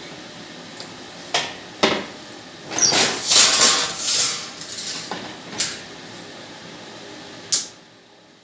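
Thin galvanized sheet-steel parts being handled: two sharp metallic clanks, then a longer clattering, scraping stretch in the middle, and two more knocks near the end.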